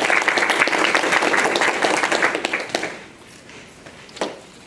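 An audience applauding, the claps dying away about three seconds in. A single sharp knock follows near the end.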